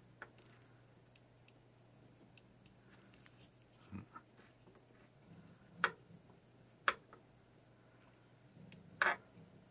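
A cat biting and rubbing its face on a plastic stick: scattered soft clicks and scrapes, a few sharper ones in the second half, over a faint steady hum.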